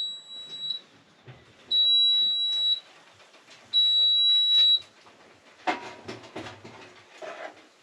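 Electronic beeper on a cooking appliance sounding three long, steady high beeps about a second apart, followed by a few light knocks and clatter.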